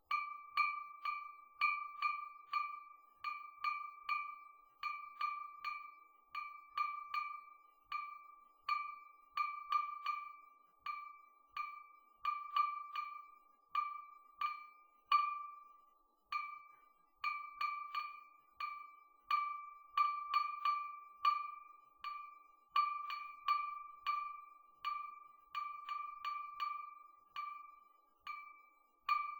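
Thick wine glasses clinked together again and again, one to two strikes a second at an uneven pace. Each strike rings the same clear note and dies away within about a second.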